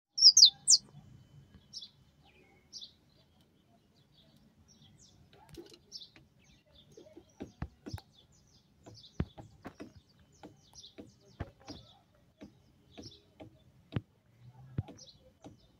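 Saffron finch chirping close by: a few loud, high chirps at the start, then softer single chirps about once a second. Scattered sharp taps join in from about seven seconds in.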